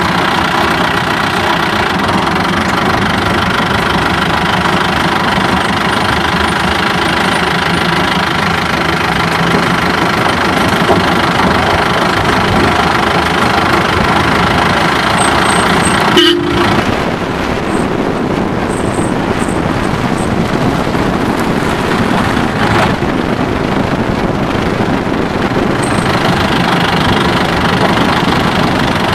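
Steady engine and road noise of a vehicle driving on a rough gravel road, heard from inside the cabin. About halfway through there is a short horn toot.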